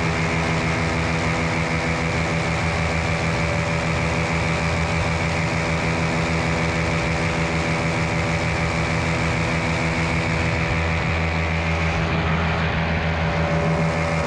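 Miniplane Top 80 paramotor's single-cylinder two-stroke engine and propeller running steadily in flight.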